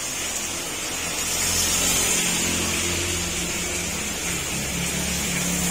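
Heavy rain hissing steadily, with a low mechanical hum underneath that grows stronger about a second and a half in.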